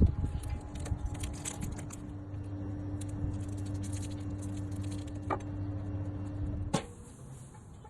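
A steady low machine hum with a higher steady tone over it and scattered light clicks. The hum stops suddenly with a sharp knock near the end, after a single knock a little earlier.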